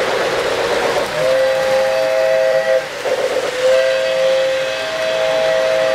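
O-scale model train's onboard sound system blowing its whistle twice, a shorter blast about a second in and a longer one after a brief break, a steady chord of several tones, over the running rumble of the trains on the layout's track.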